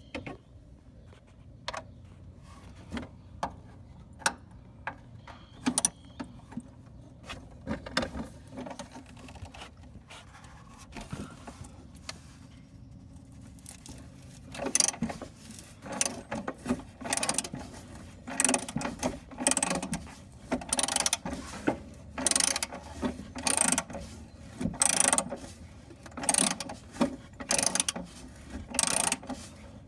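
Hand ratchet wrench being worked on fasteners. Scattered clicks and taps come first, then from about halfway a regular run of ratcheting strokes, roughly one every two-thirds of a second.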